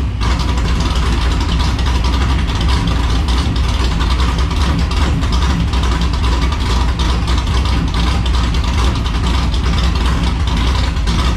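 Chevy S10's 383 stroker V8 running at a steady idle.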